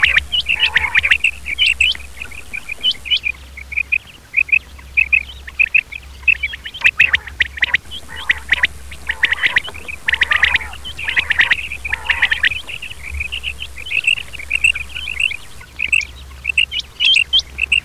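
Male quail (batair) calling: short, high chirps repeated over and over, some bunched into quick runs, over a steady low hum.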